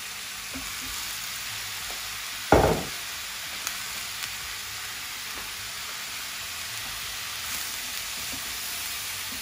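Stir-fry sizzling steadily in a hot pan, with one loud knock about two and a half seconds in and a few faint clicks.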